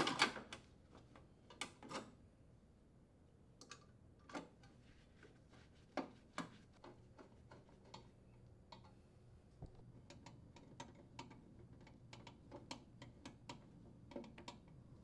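Faint light clicks and taps of a Phillips screwdriver and sheet-metal junction box cover as the box is set in place and its screws are driven in, with a quick run of ticks in the second half.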